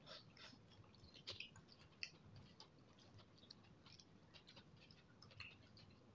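Faint, irregular mouth clicks and wet ticks of a person chewing noodles, eaten by hand.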